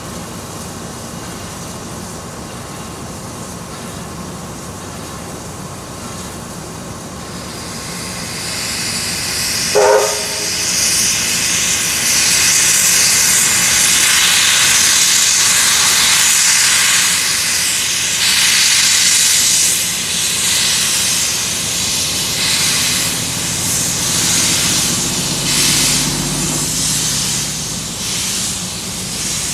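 Victorian Railways R class 4-6-4 steam locomotive R766 standing with a steady hiss, giving one short whistle toot about ten seconds in. It then starts off, and loud hissing from the steam venting at its cylinders takes over for the rest of the time.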